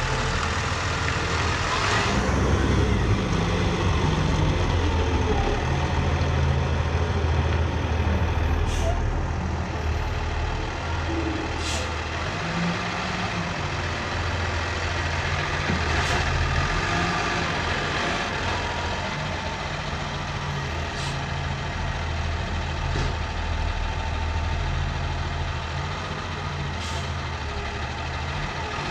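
Heavy engine of a bale-loading machine running and working, its pitch and load shifting every few seconds, with a few sharp knocks along the way.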